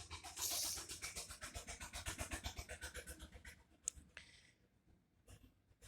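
Pen scratching quickly back and forth on paper, about five strokes a second, for some three seconds, followed by a single tap about four seconds in.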